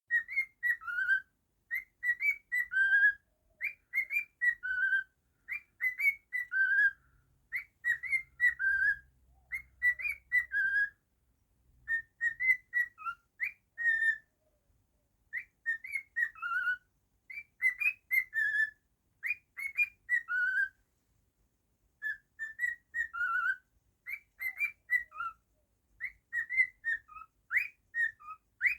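Cockatiel whistling a learned tune, a military song, as short phrases of quick gliding notes repeated over and over with brief pauses between runs.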